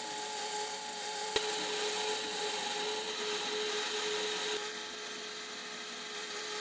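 Metal lathe running steadily, a steady motor hum under an even hiss from work on the spinning part, with a single sharp click about a second and a half in.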